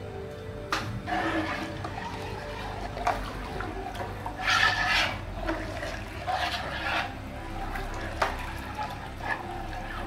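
Kadhi being stirred with a long metal spatula in a large metal pot: the thin liquid sloshes in several short swishes, with a few sharp knocks of the spatula against the side of the pot.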